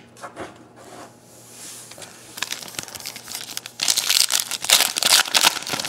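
A trading-card pack's plastic foil wrapper being crinkled and torn open by hand, with a few light clicks at first, then crackling that grows loud about four seconds in.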